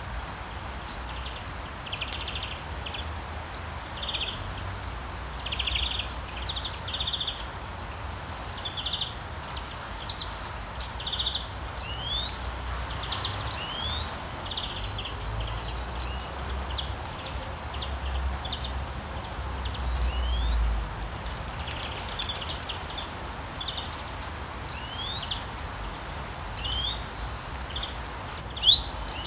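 Small birds chirping over a steady hiss: clusters of short buzzy notes and quick upward-sweeping chirps, repeating every second or so. There are two louder sharp notes near the end.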